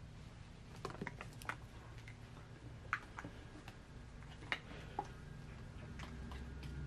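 Handling noises: a few light clicks and taps, scattered and irregular, as a plastic spray bottle and a bicycle frame lying on cardboard are handled, over a faint steady low hum.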